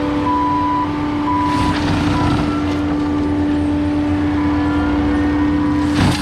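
Forestry mulching machine's diesel engine and hydraulics running steadily under load with a constant whine, while a back-up alarm beeps three times in the first two seconds as it reverses to back-drag the ground.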